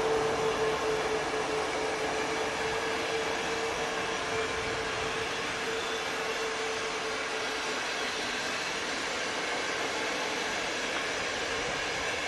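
Intercity passenger coaches of a departing train rolling past, with a steady rumble of wheels on the rails. A single high note sounds at first and fades away over the first eight seconds or so.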